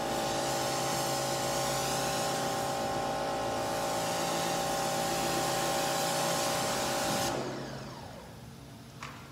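Electric pressure washer running with its water jet spraying: a steady motor whine over a hiss. About seven seconds in it shuts off and the motor winds down, and a short click follows near the end.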